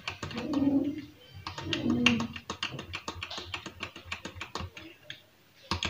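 Metal spoon stirring thick whipped instant-coffee cream in a glass bowl, clicking rapidly against the glass, with one louder knock near the end.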